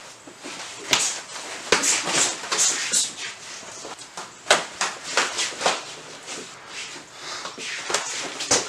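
Sparring in padded gloves and shin guards: about ten irregular slaps and thuds of punches and kicks landing, with feet scuffing on foam mats and short hissing bursts between the hits.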